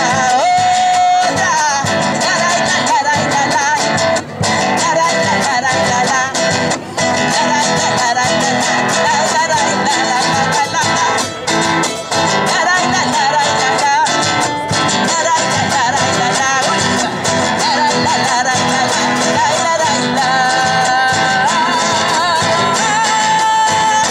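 Live Spanish-language song: women's voices singing, accompanied by a strummed acoustic guitar and a small-bodied guitar.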